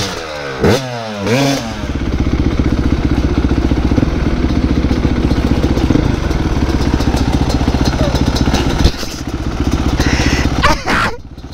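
Two-stroke dirt bike engines: revved several times in the first two seconds, pitch sweeping up and down, then running steadily with a fast, even pulse while riding, and revved briefly again near the end.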